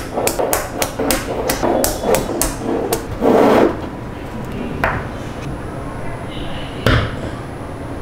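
Magnetic balls clicking and snapping together: a quick run of sharp clicks over the first three seconds, a brief louder rattle about three and a half seconds in, then a few scattered clicks.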